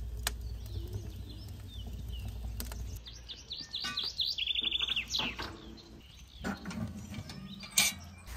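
Small birds chirping, with a quick high trill in the middle. A low rumble stops about three seconds in, and a sharp knock comes near the end.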